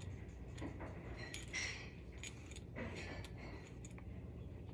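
Scattered light clicks and clinks of small hard objects being handled, over a low steady hum.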